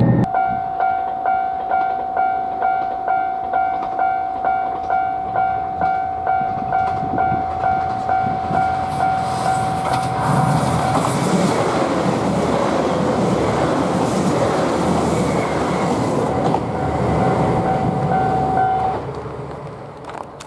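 A railway level-crossing alarm rings in even pulses, about two a second, while a JR Shikoku 2700 series diesel express train approaches. The train then passes with a rush of engine and wheel noise. After it has passed, the alarm sounds again briefly and then fades out.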